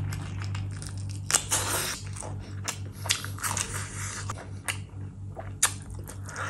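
Close-miked mouth sounds of a person eating curried meat and rice by hand: biting, chewing, lip smacks and soft squishes, in quick irregular clicks over a low hum.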